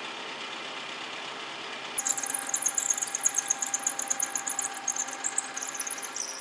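Milling machine spindle turning a 7/16-inch twist drill. About two seconds in, the drill starts cutting into the metal shaft with a rough, scratchy, high cutting noise that goes on until near the end: one of a row of holes drilled to clear the waste from a keyway slot.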